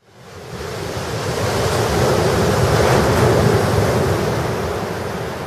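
Waves washing as a steady rush of water noise that fades in from silence, swells to a peak about three seconds in, then eases off.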